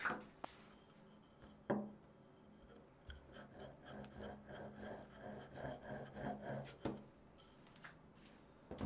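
Small wooden rolling pin rolled back and forth over the end of a bagel dough rope on a wooden board for about four seconds, a rhythmic rubbing as the end is flattened, with a few short wooden knocks before and after.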